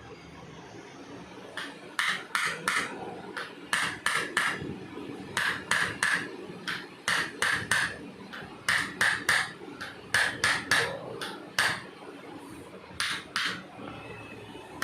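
A chiropractic adjusting instrument striking in quick runs of two to four sharp, ringing metallic taps, repeated many times from about a second and a half in, as it works over the painful spot.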